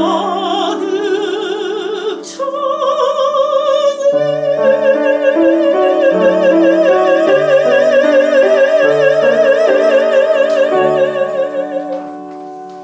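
Soprano singing with piano accompaniment. She closes on one long high note with wide vibrato, held for about eight seconds before it ends, while the piano plays beneath.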